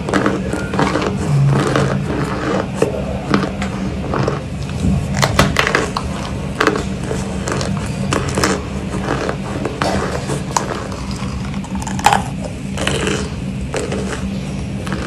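Chunks of compressed cornstarch being bitten and chewed close to the microphone: irregular crunching and crackling, with a steady low hum underneath.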